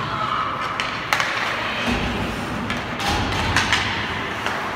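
Ice hockey play in an arena: several sharp clacks and knocks of sticks and puck, the loudest about a second in and a cluster around three seconds in, over a steady background of rink noise.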